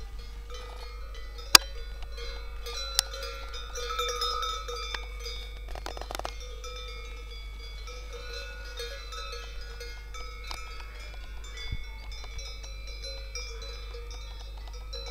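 Small bells on a grazing herd clanking and ringing irregularly, several at once, in a continuous jangle. A single sharp click about a second and a half in stands out as the loudest sound.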